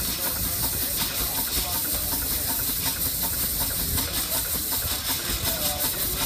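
Steam traction engine hissing steadily as steam escapes, with a low rumble underneath.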